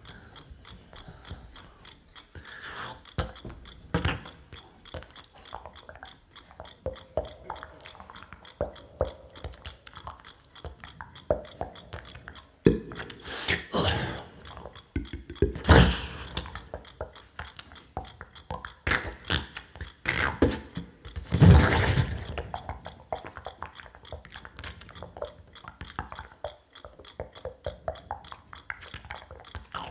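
Amplified vocal percussion from a beatboxer improvising into a handheld microphone: irregular mouth clicks, pops and smacks with no steady beat. A few louder, noisier bursts come in the middle and about twenty-two seconds in.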